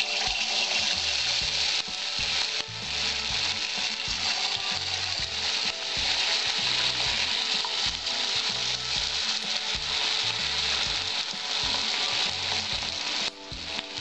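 Battered chicken pieces deep-frying in hot refined oil in an aluminium kadai as more are dropped in by hand: a steady, loud sizzling hiss of bubbling oil, dipping briefly near the end.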